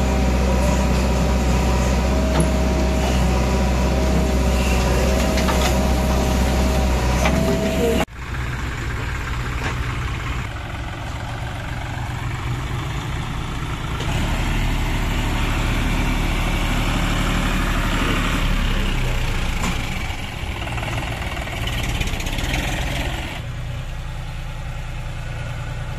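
John Deere tractor's diesel engine running as it hauls a trolley heaped with soil, steady and loud at first, then changing abruptly about eight seconds in to a rougher, uneven engine sound, with a further sudden drop near the end.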